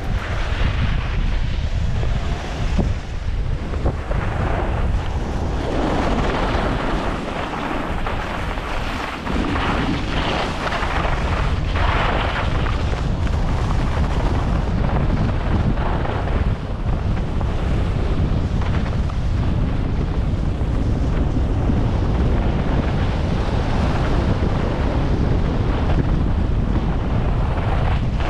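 Wind buffeting a helmet camera's microphone while skiing fast downhill, with a rushing hiss from the skis sliding and carving on snow that swells and eases through the turns.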